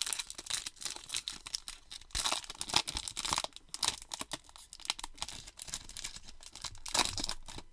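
A baseball card pack's silver foil wrapper being torn open and crinkled: a run of sharp crackles and rips, louder in clusters about two, three and seven seconds in.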